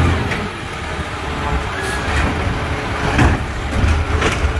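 Automated side-loader garbage truck's diesel engine running as it pulls up to the curb, with a few short clanks about two, three and four seconds in.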